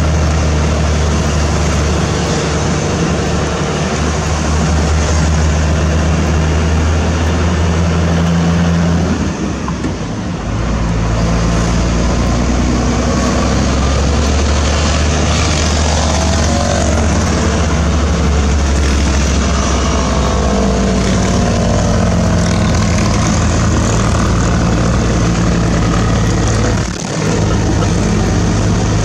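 UD Trucks Quester diesel engine running under way, heard from inside the cab, with road noise. The engine note breaks off and the level dips briefly twice, about nine seconds in and near the end, before picking up at a new pitch.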